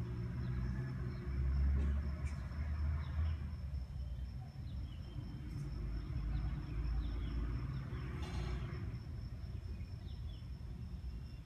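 Outdoor garden ambience: a steady low rumble, louder in the first few seconds, under faint short falling chirps and a thin steady high-pitched tone. A brief rustle about two-thirds of the way through.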